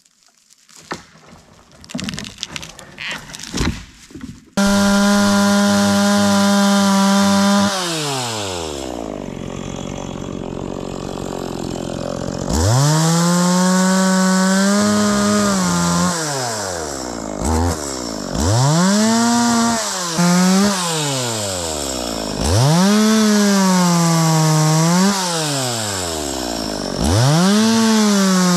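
Two-stroke chainsaw starting up about four seconds in, running fast, dropping to idle, then revved again and again in bursts of one to three seconds, with the pitch sagging slightly under load, as when sawing wood. Scattered clicks and rustling come before it starts.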